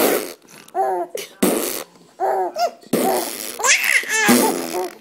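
Fart noises made for a young baby, four noisy bursts, each answered by the baby's short bursts of laughter.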